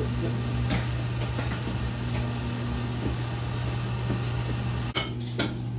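Steady electric hum of an Axeman-Anderson 130 coal stoker's combustion fan and the boiler's circulator pump running, with a few faint clicks.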